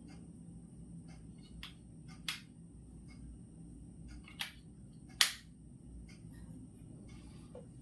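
Quiet room background with a steady low hum and scattered small clicks and taps at irregular intervals, the sharpest about five seconds in.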